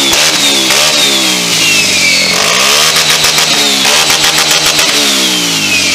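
Scooter engine being revved repeatedly on its stand, the revs rising and falling about once a second.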